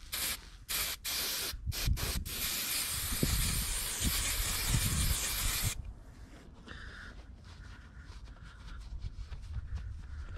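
Aerosol can of spray adhesive hissing. A few short squirts come in the first two seconds, then one steady spray of about three and a half seconds that cuts off just before the six-second mark.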